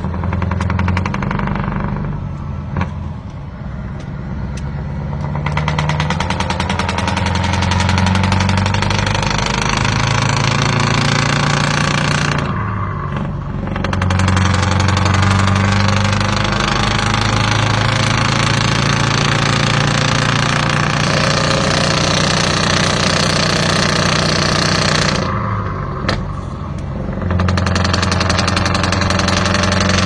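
Old truck's engine running under way, heard from inside the cab. Its note drops away and picks up again three times.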